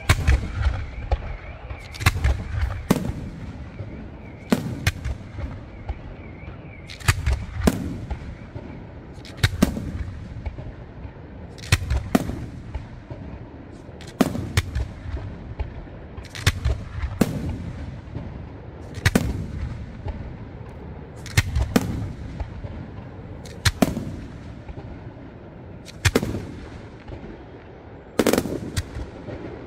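Aerial fireworks shells bursting in loud booms about every two seconds, some in quick pairs, each boom trailing off in echo.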